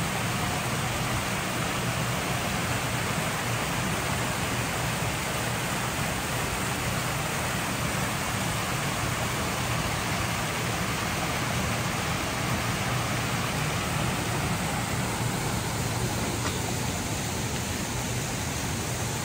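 A steady, even rushing noise that stays level throughout, with a low hum underneath.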